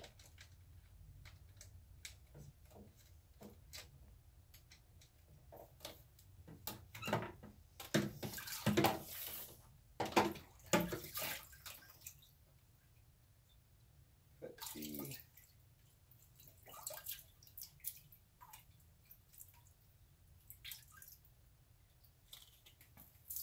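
Intermittent splashing and dripping of water with scattered clicks and knocks while DIY PVC venturi fittings on an aquarium pump line are swapped over. The busiest run of splashes and knocks comes about six to eleven seconds in, with sparser drips and clicks after it.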